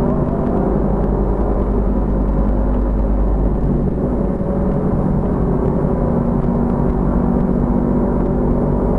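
Motorcycle engine running steadily at cruising speed, with road and wind noise, inside a road tunnel.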